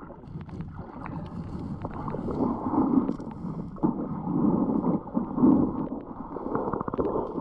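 Muffled water noise heard underwater, swelling and easing as legs wade through shallow water, with many small clicks of pebbles knocking together underfoot.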